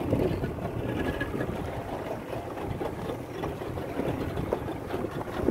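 A small fishing boat's motor running steadily, heard as a rough, continuous noise with water and wind mixed in.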